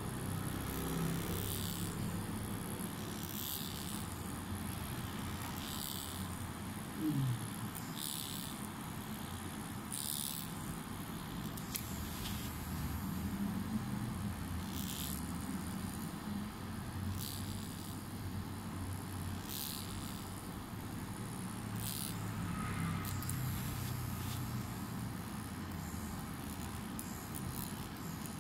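Tattoo machine running steadily as it shades a tattoo, a low hum under a haze of background noise, with short hissing rustles every second or two. A brief rising whine about seven seconds in is the loudest moment.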